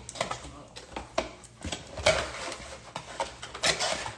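Irregular light knocks and clicks of small objects being handled, with faint talk underneath.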